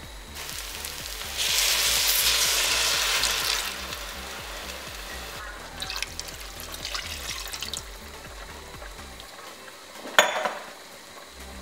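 Water poured into a hot enamelled pot of sautéed chicken and rice, hissing and sizzling loudly for about two seconds, then quieter sizzling and splashing. A single sharp knock comes near the end, over soft background music with a steady beat.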